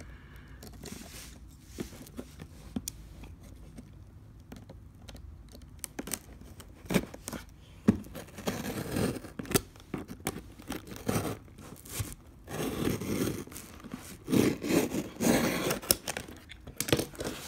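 Small blade slitting the packing-tape seals on a cardboard box, with tape tearing and cardboard scraping. Sparse clicks at first, then frequent scraping and rustling from about halfway through as the seal is cut and the flaps are worked loose.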